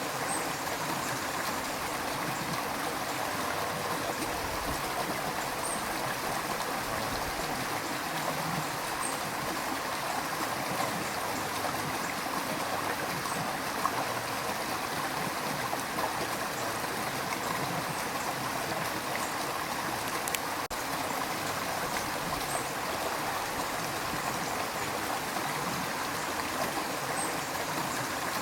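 A river rushing steadily, with small trickles and gurgles.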